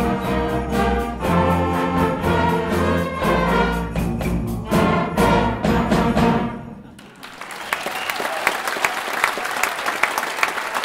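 School concert band of woodwinds, brass and percussion playing the closing bars of a piece over a steady percussion beat; the last chord dies away about six and a half seconds in. Audience applause follows.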